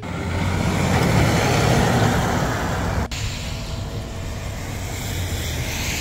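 Road traffic noise: a motor vehicle's engine rumble and tyre noise swelling to a peak about two seconds in, breaking off abruptly about three seconds in, then going on as steadier, quieter road noise.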